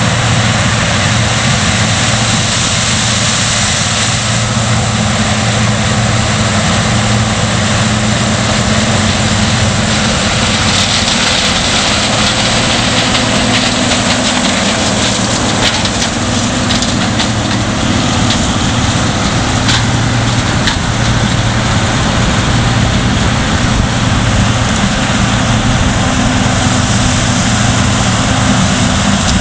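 John Deere 9880i STS combine harvesters working in standing maize, a steady loud drone of diesel engine and threshing machinery under a hiss of crop and machine noise. The hiss grows brighter for a few seconds near the middle as a combine passes close.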